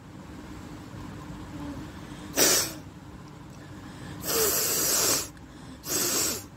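A woman forcefully blowing air out through her nose three times: a short sharp blast about two seconds in, then a longer blast of about a second, then another shorter one near the end.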